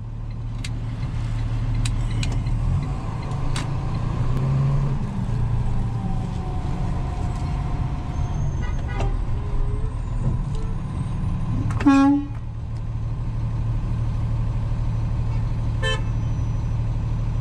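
Steady low engine drone heard from inside a large vehicle's cab. A vehicle horn sounds once, briefly and loudly, about twelve seconds in. There are fainter short tones near nine and sixteen seconds.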